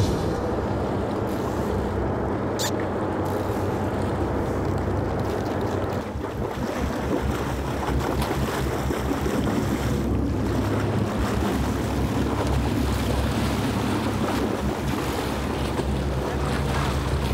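Sportfishing boat's engine running steadily under wind buffeting the microphone and water sloshing against the hull, with a brief high squeak about three seconds in.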